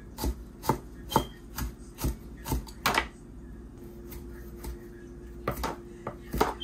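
A kitchen knife chopping green onions on a cutting board, with sharp strokes about two a second, a pause midway, then a few more strokes near the end.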